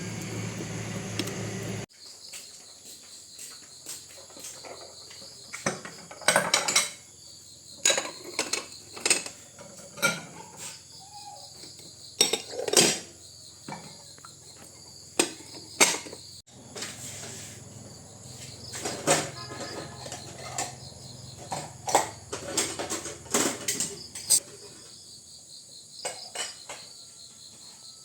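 Steady high chirring of insects, with irregular sharp knocks and clinks scattered throughout, the loudest sounds. A louder rushing noise in the first two seconds cuts off abruptly.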